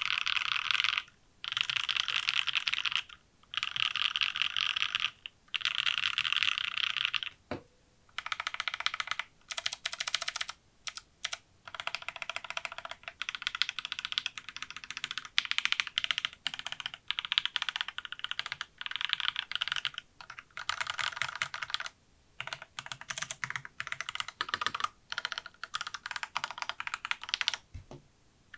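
Fast typing on a mechanical keyboard with lubed and filmed Durock L2 linear switches: rapid clacky keystrokes as the keys bottom out, in runs of a second or two broken by brief pauses.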